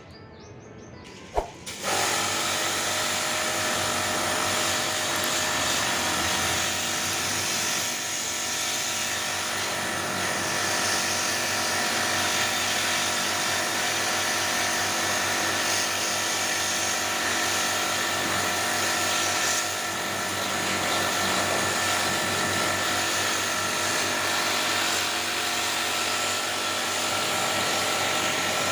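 A small electric motor starts just after a sharp click and then runs steadily.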